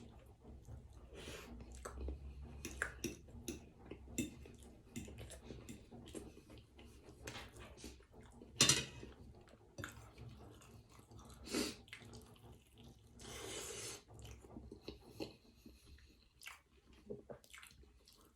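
Close-up wet chewing and mouth sounds of a person eating, with many small clicks and smacks and a louder knock about nine seconds in.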